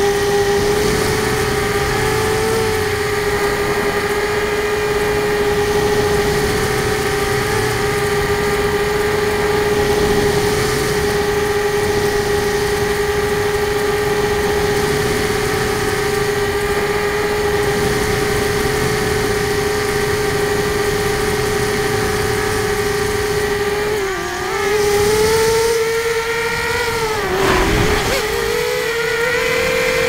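Brushless motors and 6-inch three-blade propellers of an RCExplorer Tri-Mini tricopter, heard from its onboard camera, whining steadily in flight. Near the end the pitch dips briefly twice and settles a little higher. A chattering is mixed in, which the owner suspects comes from the tail servo.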